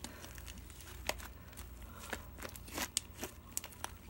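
Homemade slime being kneaded and squeezed by hand, giving off irregular small clicks and pops as air pockets burst in it.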